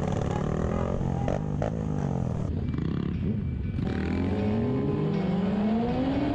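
Motorcycle engines running, then from about four seconds in a sport bike's engine accelerating with its pitch rising steadily.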